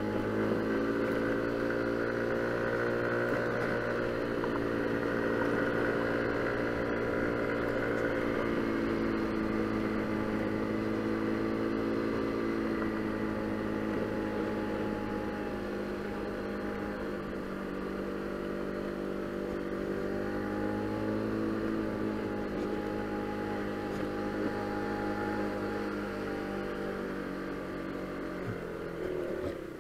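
Motor scooter engine running under way, its pitch rising and falling gently with the throttle, then dropping and quieting near the end as the scooter slows.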